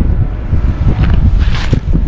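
Wind buffeting the microphone, a heavy steady rumble, with a short hissing burst about one and a half seconds in.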